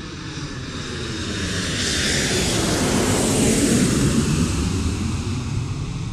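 Airplane flying past as a sound effect: engine noise that swells to its loudest about three and a half seconds in, then fades away.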